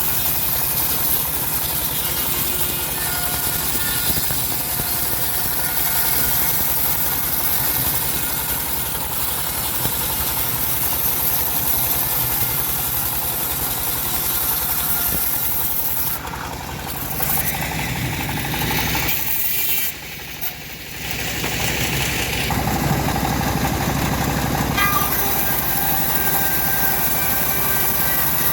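Engine of a homemade bandsaw mill running steadily, with the sound dropping off briefly twice about two-thirds of the way through.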